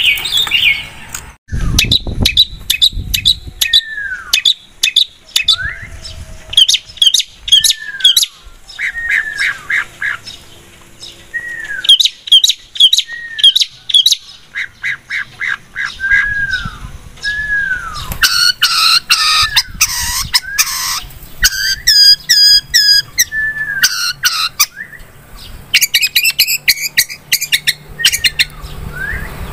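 Long-tailed shrike (cendet) singing a loud, varied song: repeated short downward-slurred whistles mixed with fast chattering trills and harsh scratchy notes.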